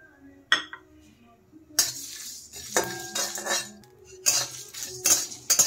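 Flat metal spatula scraping and stirring whole spices in a dry kadai, as they are dry-roasted without oil. There is one click about half a second in, then the spatula scrapes in two bouts, starting about two seconds in, with a short pause near the four-second mark.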